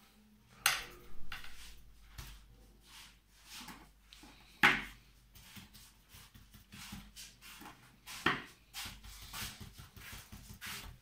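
Sharp knocks and clicks of hard objects being handled, loudest about a second in, near the middle and at about eight seconds, with softer clicking and rustling between them.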